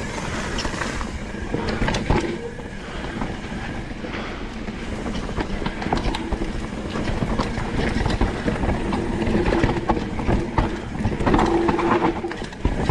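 Mountain bike descending a rough trail at speed: tyres rolling over dirt and rocks with a steady rattle, chain slap and frame clatter, over a low wind rumble on the helmet microphone.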